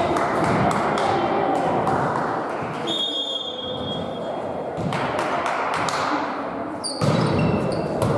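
Indoor volleyball match echoing in a sports hall: players' voices and the hum of the hall, with a short high referee's whistle about three seconds in signalling the serve. Sharp ball hits of the rally follow from about five seconds on, the loudest near the end.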